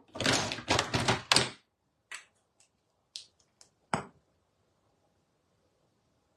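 Close handling noise: about a second and a half of scuffing and knocking, then a few light taps and clicks, the last and loudest about four seconds in.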